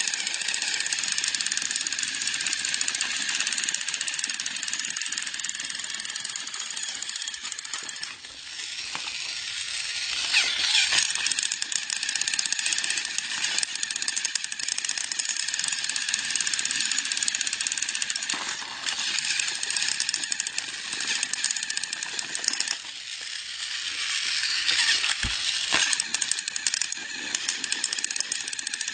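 Motorised toy trains running: small battery-powered motors and gears give a steady, high-pitched rattling buzz, with plastic wheels clattering on the track. The buzz swells louder twice, about ten seconds in and again about twenty-five seconds in, with a short knock during the second swell.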